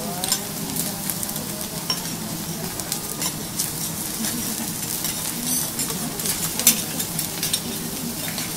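Wagyu steaks searing on a hot teppanyaki griddle: a steady sizzle full of small crackling pops of fat, with a few sharp metal clicks and scrapes of spatulas against the steel plate.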